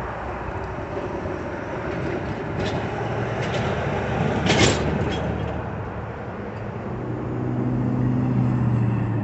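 Road traffic passing over a railroad grade crossing: tyre and engine noise from passing cars, rising to a loud pass about four and a half seconds in as a semi truck goes by close. A steady low vehicle engine hum sets in near the end.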